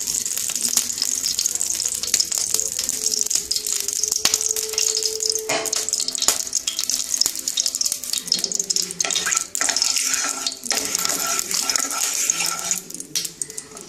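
Cooking oil heating in a hot non-stick kadai, sizzling with a dense run of fine crackles. Near the end a wooden spatula spreads the oil across the pan.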